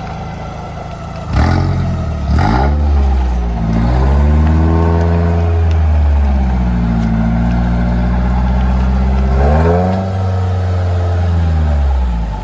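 A 4x4's engine revving. Its pitch climbs sharply about a second in, with two knocks, holds high, dips, then rises again and falls away near the end.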